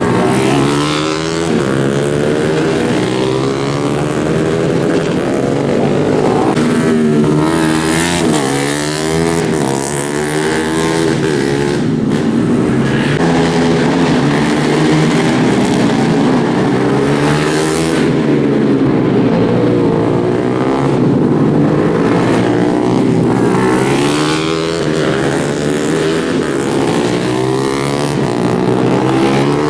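Several 150cc underbone racing motorcycles at full throttle, their engine notes overlapping and repeatedly climbing in pitch, then dropping, as they accelerate and shift.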